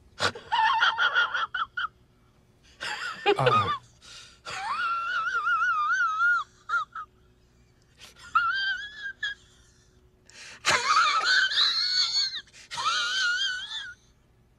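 A man's voice making a series of high, wavering falsetto cries and warbles in about six separate bursts, with a steep downward slide in pitch about three seconds in.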